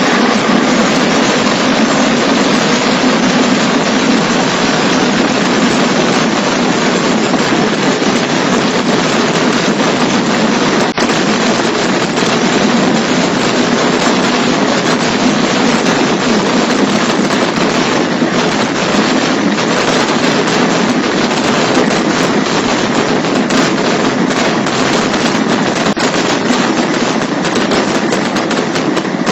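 Vedikettu fireworks: a loud, unbroken barrage of firecrackers going off in very rapid succession, a continuous crackling rattle with no pauses.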